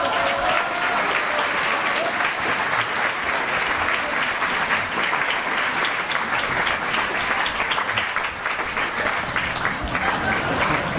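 Audience applause, dense and steady clapping that breaks out at the start and keeps going.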